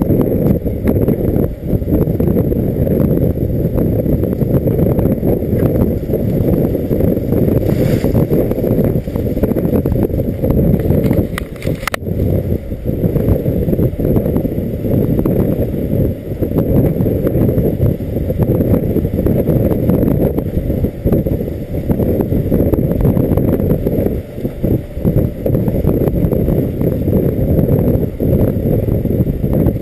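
Heavy wind buffeting on a camera mounted outside a moving Ford F-250 Super Duty pickup, a rough low rumble that keeps dipping and surging, with the truck's drive rumble underneath. Brief knocks come about eight seconds in and again around twelve.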